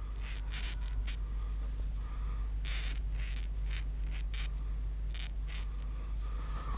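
Metal dip-pen nib scratching across paper in a run of short, irregular strokes, over a steady low hum.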